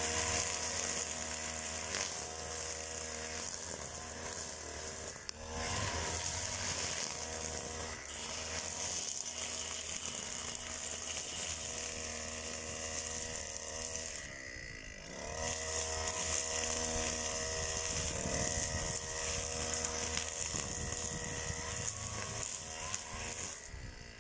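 Petrol string trimmer running at high revs, its line cutting grass with a steady high hiss over the engine note. About halfway through the throttle is let off briefly, the revs falling and then climbing back, and near the end the engine drops back toward idle.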